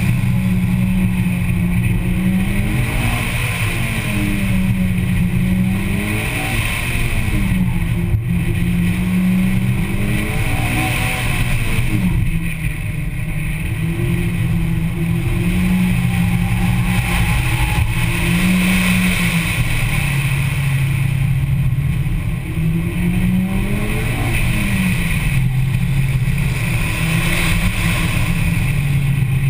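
Mitsubishi Lancer Evolution X's turbocharged 2.0-litre four-cylinder engine pulling hard through an autocross run, its revs climbing and dropping again and again as the driver accelerates and lifts between cones, over steady wind and road noise. The engine note sits lower for longer stretches near the end.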